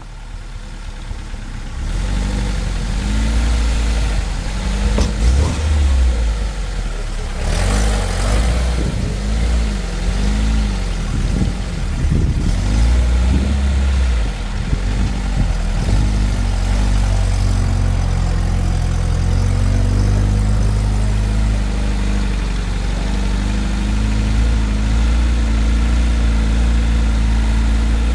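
Off-road vehicle's engine working over rough ground, the revs rising and falling again and again through the first half, with a short rush of noise about eight seconds in. It then settles to a steady run.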